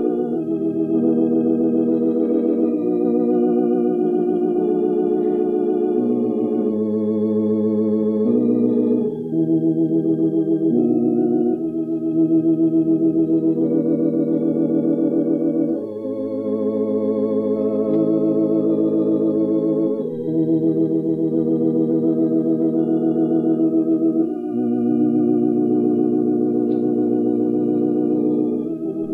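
Organ playing slow, held chords that change every second or two, with a slight wavering tremolo.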